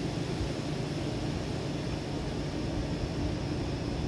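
Severe thunderstorm wind blowing steadily, a dense rushing noise with a low, uneven rumble underneath.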